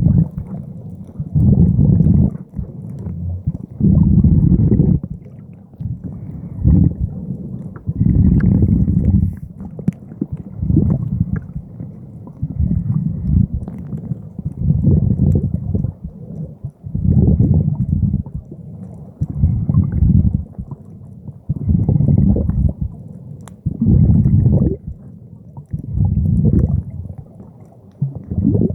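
Muffled, rhythmic breathing through a snorkel, heard from a camera in the water. It comes as a low whoosh about every two seconds, each breath lasting about a second.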